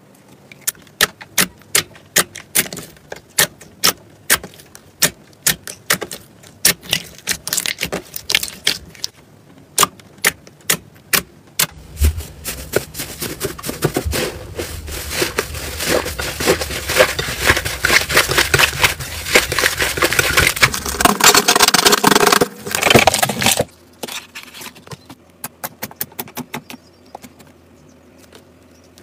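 Hands working slime: glossy slime popping and clicking in sharp snaps, several a second, as fingers press its air pockets. About twelve seconds in it changes to a dense crackling for about ten seconds as a crumbly, textured slime is squeezed. It then stops abruptly and gives way to sparser, quieter pops.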